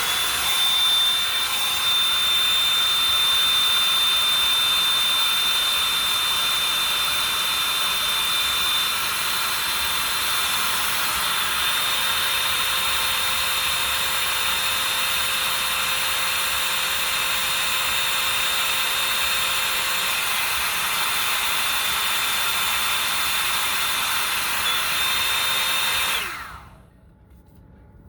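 Revlon One Step hair dryer brush running: a steady rush of air with a high motor whine. It comes up to speed at the start and is switched off about 26 seconds in, the whine dropping as it winds down.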